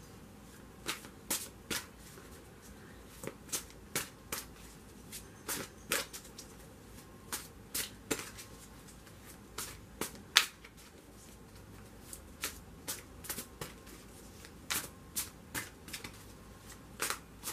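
A deck of tarot cards being shuffled by hand: short, sharp card slaps and flicks in quick clusters of two to four, with brief pauses between clusters.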